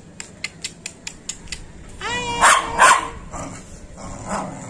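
Pet dog barking: a pitched call running into two sharp barks about halfway in and one more bark near the end, after a quick run of about seven light clicks.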